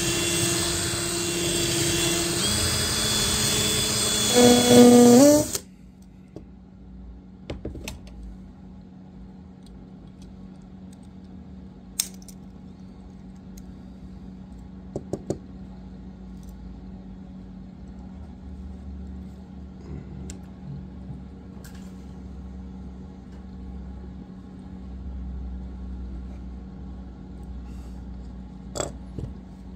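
Power drill with a 1/8-inch bit drilling out the rivet of a Hot Wheels die-cast car's base, running steadily for about five seconds, its pitch jumping up just before it cuts off. After that, a few light clicks and taps over a low steady hum.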